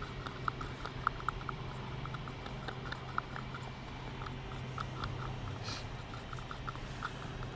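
Light, irregular clicking and tapping of a small stick stirring pigment into epoxy in a small plastic cup, with a steady low hum behind it.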